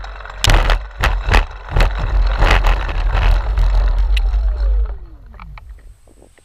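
Model airplane landing on a grass field: a string of irregular knocks and scraping as the wheels bump and rub through the grass, over a low rumble. Its motor and propeller wind down in a falling whine that dies away about five and a half seconds in, as the plane rolls to a stop.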